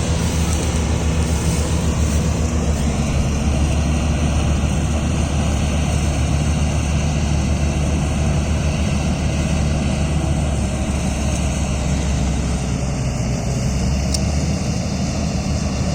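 Combine harvester engine running steadily with a constant low hum.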